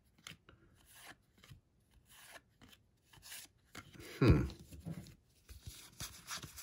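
Baseball trading cards being handled and shuffled in the hands: soft rustles and light ticks of card stock, with one louder thump about four seconds in.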